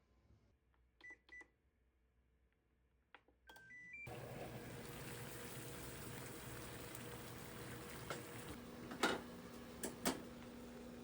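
An electronic appliance's control panel beeping: two short beeps, then a quick rising run of beeps. The appliance then starts and runs with a steady hum and fan-like hiss, with a few sharp clicks near the end.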